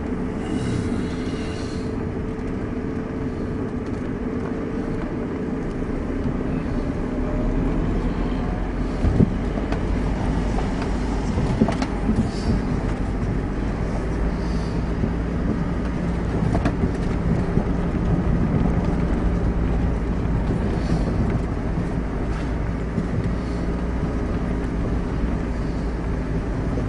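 Vehicle engine and road noise heard from inside a moving vehicle on a rough road. The engine runs steadily, a deeper rumble builds about seven seconds in, and a few short knocks and rattles come from the ride over the rough surface.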